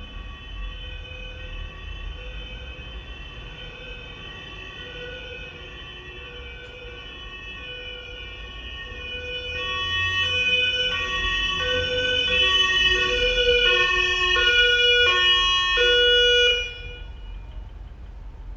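Ambulance siren alternating between two pitches, faint at first, then growing loud as the ambulance comes back, before it shuts off suddenly about three-quarters of the way in. The vehicle's engine rumble carries on underneath and afterwards.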